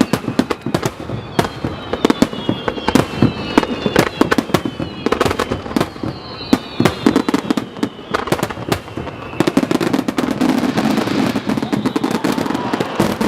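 A fireworks display: a rapid, irregular barrage of sharp shell bangs, with high whistles gliding slowly downward overhead. About two-thirds of the way through it thickens into a dense crackling.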